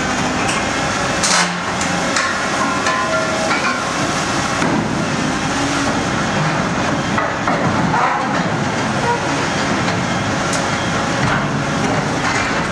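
Volvo EC 950F demolition excavator's diesel engine running under load, with sharp metallic clanks and crunches as its scrap shear bites into and tears scrap; the loudest clank comes about a second in, with others scattered through.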